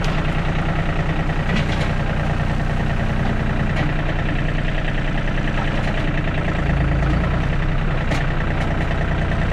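John Deere compact tractor's diesel engine running steadily under load as the front loader pulls a small tree out by a chain, with a deeper surge about seven seconds in. A few light clicks sound over the engine.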